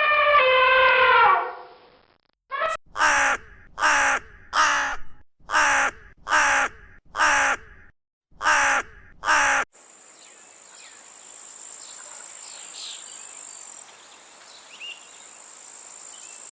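Crow cawing: about ten harsh caws, mostly in pairs. A quieter stretch follows with faint bird chirps over a high, steady hiss. At the start, a pitched, wavering call from the previous clip fades out.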